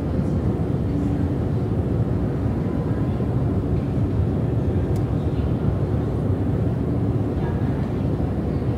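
Long subway escalator running, a steady low rumble of its machinery heard from on the moving steps.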